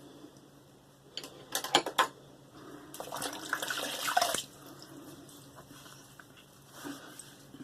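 Water splashing at a bathroom sink as a face is rinsed of shaving soap, loudest for about two seconds near the middle. It is preceded by a few sharp knocks, the loudest sounds, about a second and a half in.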